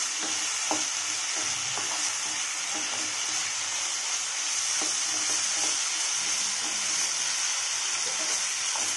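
Cubed potatoes sizzling steadily in hot oil in a kadai as a spatula stirs and turns them, with a few light scrapes and taps of the spatula against the pan; the potatoes are being sautéed with the spices.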